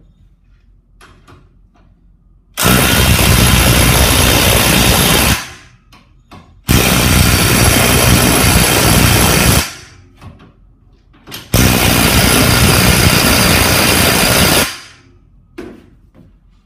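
Makita DTW285 18V brushless half-inch cordless impact wrench, on its highest speed mode, hammering three lubed nuts down tight one after another. Each run lasts about three seconds and then stops.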